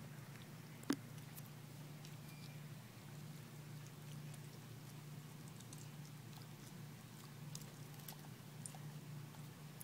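Tortoise biting and chewing a piece of tomato: faint scattered small wet clicks, with one sharp click about a second in, over a steady low hum.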